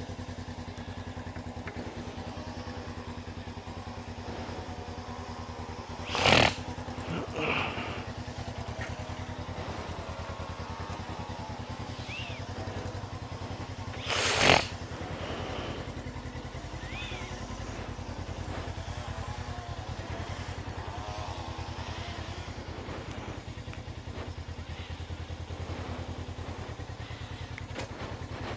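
Motorcycle engine idling steadily, broken by two short loud noises about six and fourteen seconds in.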